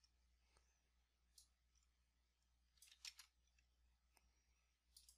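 Near silence with a few faint clicks from a computer mouse and keyboard: one about a second and a half in, a small cluster around three seconds in, and another near the end.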